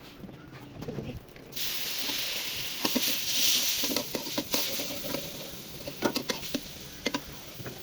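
Food sizzling in hot oil in a pan, starting suddenly about a second and a half in and easing off slowly, with scattered clicks and taps of a utensil against the pan.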